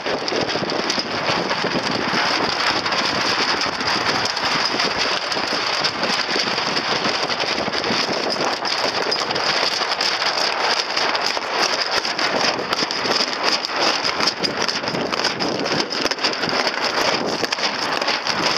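Steady splashing and rushing of water against the hull of a small sailing dinghy under way: an even, crackling hiss that keeps up without a break.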